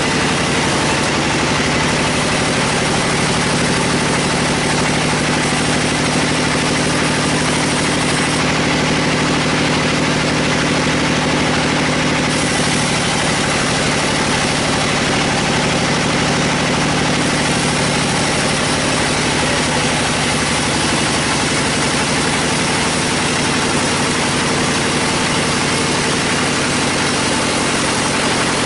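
Band sawmill running steadily: a constant mechanical drone from its drive and blade, with a slight change in its low tone about halfway through.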